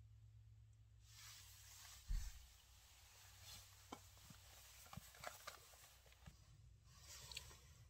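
Faint rustling and small clicks of someone handling things close by, with one low thump about two seconds in.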